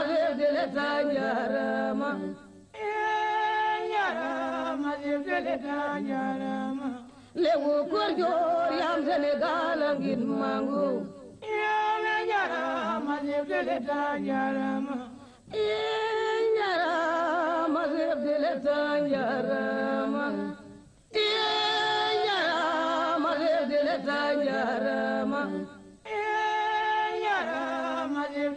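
Unaccompanied singing voices in long held phrases of several seconds each, with short pauses between them.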